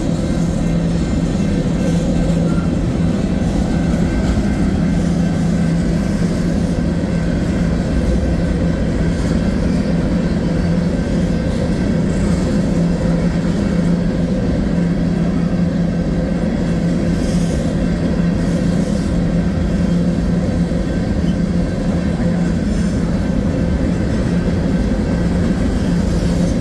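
Freight train's open-top cars rolling past at a grade crossing: a loud, steady rumble of steel wheels on rail with an unbroken low hum.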